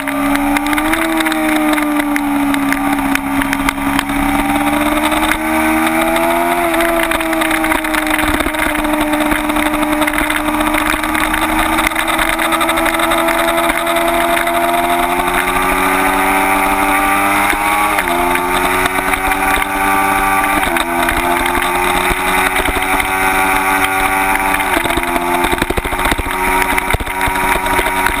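Kawasaki Ninja 250's parallel-twin engine running hard at high revs on track, its pitch rising and falling slowly through the corners. The pitch jumps abruptly a few times in the second half as gears are changed.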